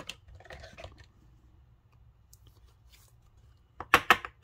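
A baseball card being slid into a rigid plastic top loader, a light rustle and scrape. Near the end comes a quick run of sharp taps, about five a second, as the top loader is knocked against the tabletop to seat the card.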